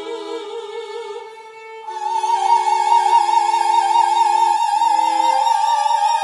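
Operatic soprano voice and violin performing together. About two seconds in, a loud high note with wide vibrato comes in and is held, over lower sustained notes that stop about five seconds in.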